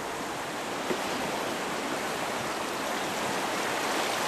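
Whitewater of the Skagway River rushing around a raft in rapids, a steady rushing noise that grows gradually louder.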